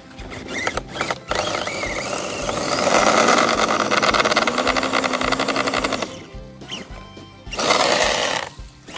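Redcat Everest 10 RC crawler's electric motor and gearbox whirring as it drives through snow, the whine rising in pitch about halfway through. Near the end there is a short, louder rush as the tyres spin and throw snow.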